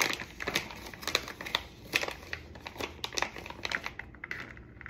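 Plastic food packaging crinkling, with irregular light clicks and taps of utensils and containers being handled during food prep.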